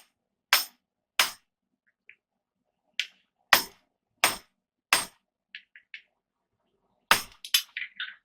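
Hammer strikes on hot steel being fullered: about seven sharp, irregularly spaced blows with silence between, a few light ringing clinks, then a quick cluster of strikes near the end.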